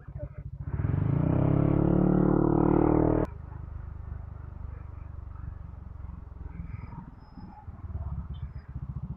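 Motorcycle engine running while riding. About a second in it gets louder and rises in pitch as it accelerates, then cuts off abruptly to a quieter, steady run.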